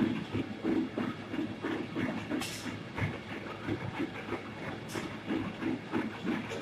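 Bouillon cube wrapping machine running with a steady rhythmic clatter of about three beats a second. Two short hisses come about two and a half and five seconds in.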